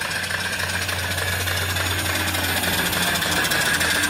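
Home-built cast-iron vertical steam engine (3-inch bore, 3-inch stroke) running under steam: a fast, steady chuffing rhythm from the exhaust over a continuous hiss of steam. It grows gradually louder toward the end.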